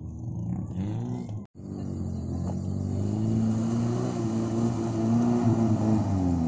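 Suzuki Vitara 4x4 engines working through mud. One runs close by at first; after a cut about one and a half seconds in, another pulls steadily under load up a rutted trail, growing louder as it comes closer.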